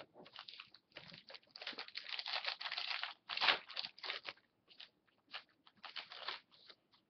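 Foil trading-card pack wrapper crinkling as hockey cards are pulled out and handled. It is a dense run of crackly rustling, loudest from about a second and a half to four and a half seconds in, then shorter scattered rustles.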